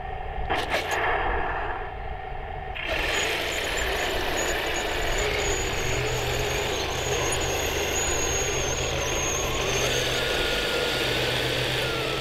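Radio-controlled scale model Sherman tank running: two clicks in the first second, then about three seconds in a steady engine-like running sound starts abruptly, with a high steady whine over a low rhythmic rumble.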